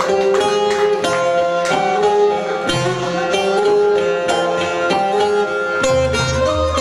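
Turkish folk music played instrumentally on plucked string instruments, a quick run of struck notes over a steady drone-like tone, with a low tone joining about six seconds in.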